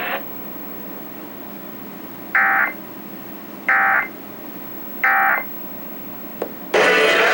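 Emergency Alert System end-of-message data tones: three short, buzzy digital bursts about 1.3 seconds apart, signalling the end of the tornado warning. Loud music cuts in near the end as normal programming resumes.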